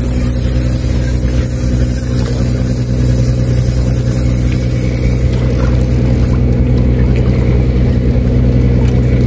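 Steady, low engine hum with an even drone.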